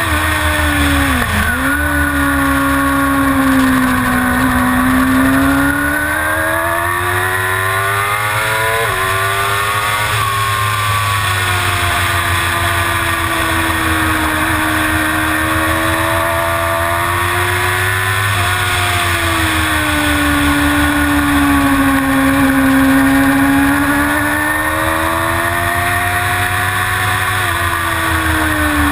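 Suzuki GSX-R750 inline-four engine at race pace, revs rising and falling through the corners with gear changes: a sharp drop and blip about a second and a half in, and stepped climbs through the gears a little later.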